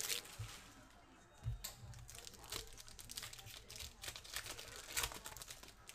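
Foil trading-card pack wrapper crinkling and tearing as it is ripped open by hand, in irregular sharp crackles that are loudest about a second and a half and five seconds in.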